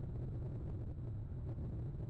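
Steady low rumble of outdoor background noise, even throughout with no distinct events.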